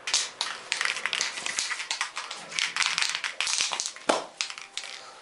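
Aerosol can of satin black spray paint being shaken and sprayed: a dense, irregular run of rattles and hisses that stops about four seconds in.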